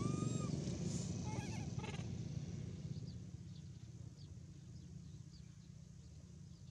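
A low engine rumble that fades away over the first three seconds, as of a vehicle moving off. A short, high, slightly bending call comes at the very start, with brief chirps about one and two seconds in and faint high ticks after.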